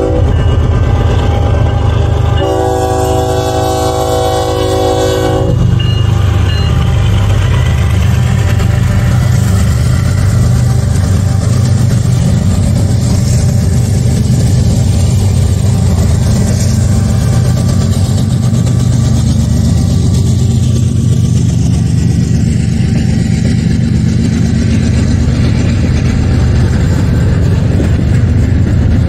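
BNSF freight train passing at a grade crossing. The locomotive's air horn sounds one long chord from about two to five and a half seconds in, then the diesel locomotives and the double-stacked intermodal container cars rumble steadily past on the rails.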